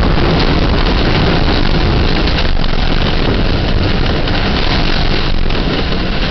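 Hurricane-force wind blowing against a sailboat's hull, heard from inside the closed cabin as a loud, steady rush with no letup.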